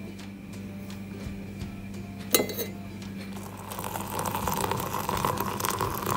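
A metal spoon clinks once against a stainless steel cezve, then water pours steadily from a kettle into the cezve onto ground coffee, starting about three and a half seconds in.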